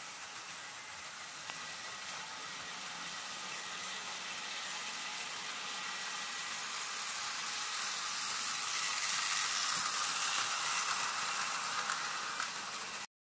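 Märklin model train, a blue tank locomotive pulling red coaches, running on metal track: a steady hissing whir of wheels and motor that grows louder as the train comes near. It is loudest about ten seconds in, then cuts off suddenly near the end.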